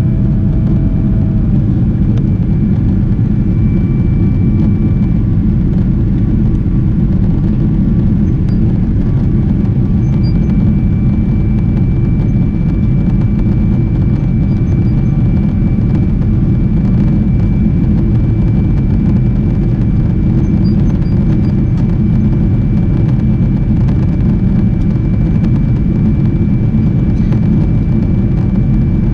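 Boeing 777-300 cabin noise in the climb after take-off: a steady, loud low rumble of the engines and rushing air, with a faint steady high whine above it.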